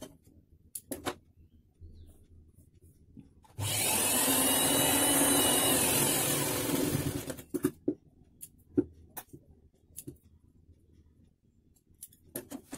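Electric sewing machine running in one steady burst of about three and a half seconds, stitching down a folded fabric strip, with short clicks and fabric handling before and after.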